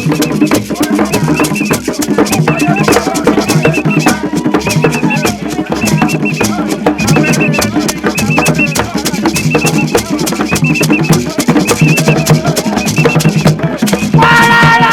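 African drum ensemble with shakers and rattles playing a fast, busy, steady rhythm. Near the end, a held pitched note joins the drumming.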